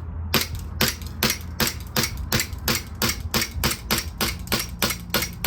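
VFC/Umarex Glock 17 Gen 5 MOS gas blowback airsoft pistol firing shot after shot at an even rapid pace, about four to five sharp cracks a second, starting about a third of a second in. Each crack includes the slide blowing back.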